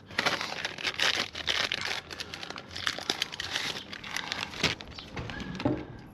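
Crinkling and rustling of packaging being handled, full of small crackles, dying down about four and a half seconds in.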